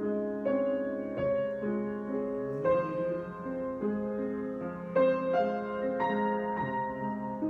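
Solo piano improvisation at a slow, unhurried pace: sustained chords with new notes struck every half second to a second, each left to ring into the next.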